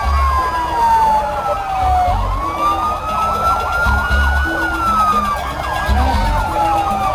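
Several vehicle sirens wailing at once in a motorcade: one loud siren sweeps slowly up and down over a tangle of faster wailing ones. A low bass pattern thumps about every two seconds underneath.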